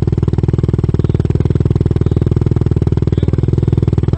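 Motorcycle engine idling steadily, its rapid exhaust pulses even and unchanging.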